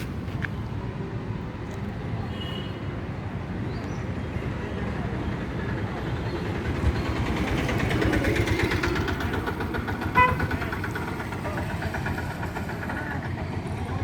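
A vehicle engine runs with a steady low rumble that swells for a few seconds past the middle. A short horn toot sounds about ten seconds in.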